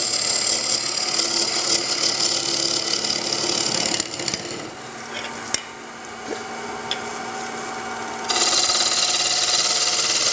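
A bowl gouge scrape-cutting into a spinning wooden bowl on a lathe, a steady rasping shear of wood. About four seconds in, the cutting stops, leaving a steady hum and a single click. It starts again about eight seconds in.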